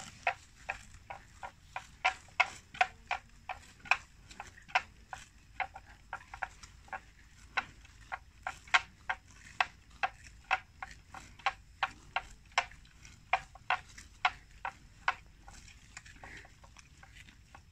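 An irregular run of sharp clicks, two or three a second, some much louder than others.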